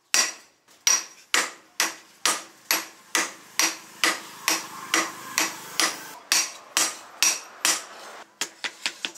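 Hand hammer blows on a red-hot leaf spring steel cleaver blade lying on a round steel anvil stake, forging it flat. The strikes are steady, about two or three a second, each with a short metallic ring, and end in a few quicker, lighter taps.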